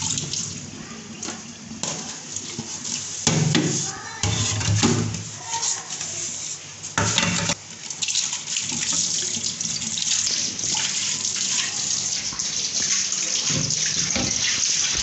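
Water from a kitchen tap running into a stainless steel sink while a plate is rinsed and rubbed under the stream, with louder splashing about three to five seconds in and again around seven seconds.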